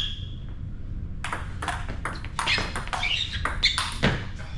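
Table tennis rally: a celluloid-plastic ball clicking sharply off bats and table, with a short ringing ping at the start and a run of quick hits and bounces from about a second in, mixed with a few short high squeaks.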